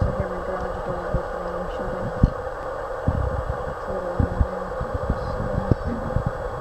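Steady background hum with scattered, irregular low thumps.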